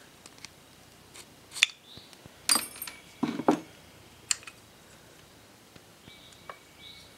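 Small metal clicks and taps of needle-nose pliers and carburetor parts being handled as the float hinge pin is worked out of a Walbro LMT carburetor and its plastic float lifted off. Several sharp clicks come in the first four and a half seconds, one with a brief metallic ring, then only a faint tap or two.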